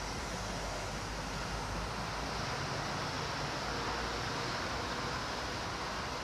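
Steady background noise: an even hiss with a low rumble underneath, with no distinct events.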